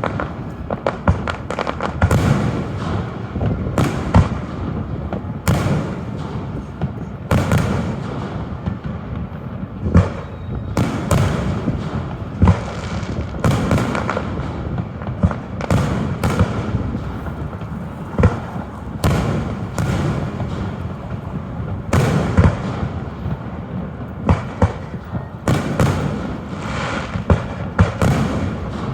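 Aerial fireworks shells bursting in quick succession, sharp booms every second or two over a continuous rumble and crackle from the display.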